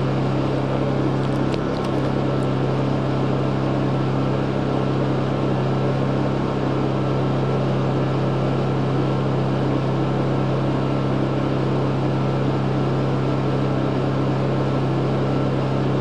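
Two Honda portable generators running steadily together, a constant even engine hum with no change in speed, left running to warm their oil before an oil change. A few faint light ticks about a second or two in.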